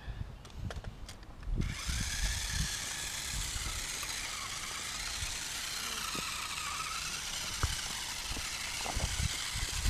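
Electric motor and gears of a small remote-control rock-crawler truck whining as it drives. It starts suddenly about a second and a half in, and the pitch rises and falls with the throttle.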